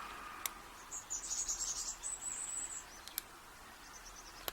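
Faint sharp clicks of a lock pick working the pin tumblers of a brass padlock as the core begins to turn, with a high, rapidly pulsing chirp lasting about two seconds starting about a second in.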